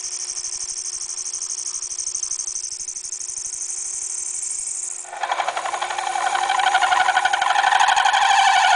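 Cobalt parting tool cutting into spinning aluminum on a Taig lathe, squealing as it cuts. The high squeal drops abruptly to a lower, fluttering chatter about five seconds in and grows louder toward the end.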